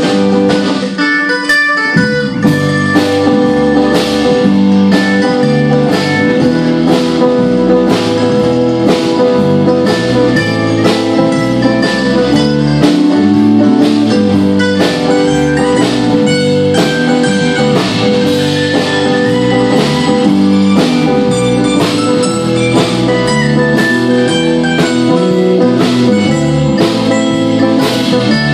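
Live band playing an instrumental passage: mandolin and acoustic guitar strumming over drums and bass, with a steady beat and no singing.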